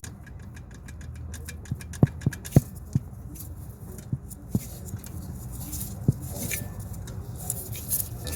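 Scattered sharp clicks and light knocks, about seven of them and closest together a couple of seconds in, over a low steady hum.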